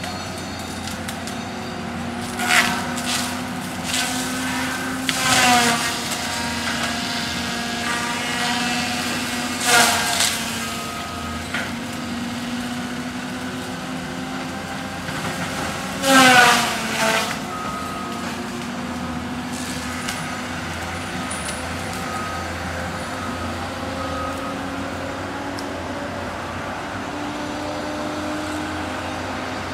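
Cat 573C feller buncher running steadily with its saw head whining. Four times the saw hits a tree with a loud cut whose pitch drops as it bites. The loudest cut comes about two-thirds of the way through.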